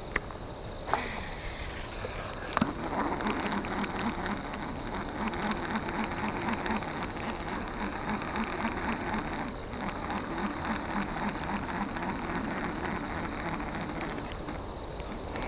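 Small round 1980s Daiwa Millionaire ST-1000 baitcasting reel being cranked in a steady retrieve, its gears whirring with a rhythmic pulse and fine ticking. A few sharp clicks come just before the cranking starts, and there is a brief break in the pulse near the ten-second mark.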